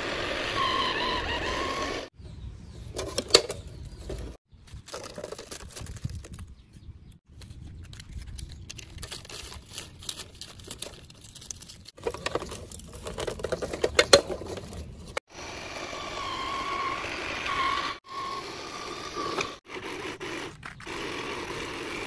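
Plastic toy truck parts being handled and scraped over sand, with rustling and a few sharp plastic clicks, the loudest about three seconds in and again near the middle.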